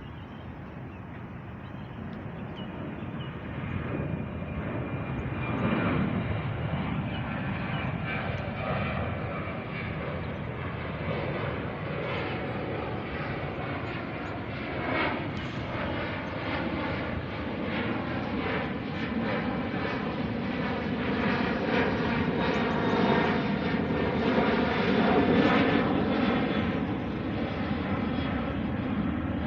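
Airplane engines running: a continuous rumble with steady whining tones on top, building louder over the first several seconds and staying loud.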